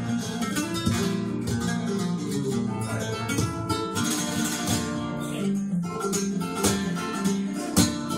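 Flamenco guitar playing alone, with plucked runs of notes broken by sharp strummed strokes.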